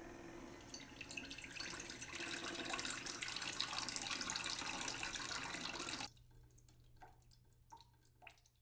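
Water pouring in a thin stream into a drinking glass, stopping suddenly about six seconds in, followed by a few faint drips.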